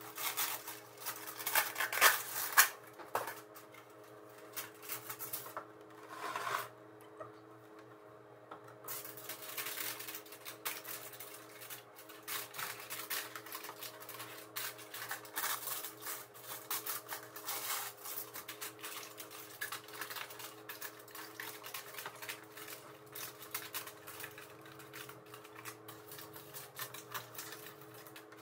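Aluminum foil being pulled from its box, torn off, and crinkled and crimped over disposable foil loaf pans: a run of crackling and rustling, loudest in the first few seconds, then steady small crinkles. A faint steady hum runs underneath.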